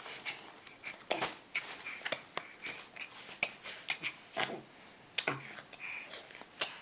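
A crawling baby's breathy whispering and mouth noises, in short puffs, mixed with brief clicks and rustles.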